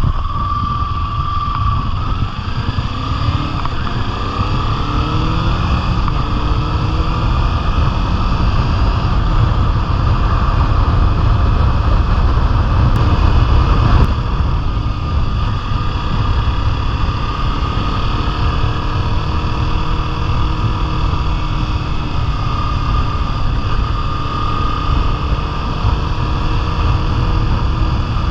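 Motorcycle engine running on the move, under heavy wind rumble on the microphone; the engine note rises over the first several seconds, then holds fairly steady.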